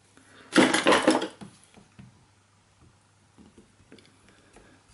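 Fingers prising a small part off a motorcycle fuel injector: a loud rustling scrape about half a second in, then a few faint clicks and a sharp click near the end.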